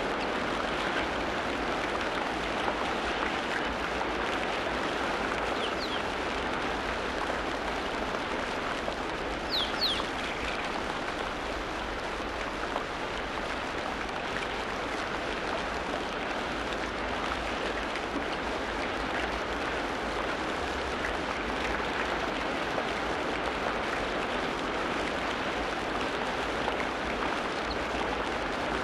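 Steady rain falling, with a few brief, high bird chirps over it, a faint one about six seconds in and a clearer one about ten seconds in.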